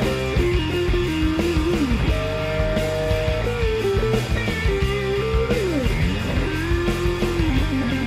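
Outro music: a guitar-led track, its melody held on long notes that slide and bend in pitch over a full band accompaniment.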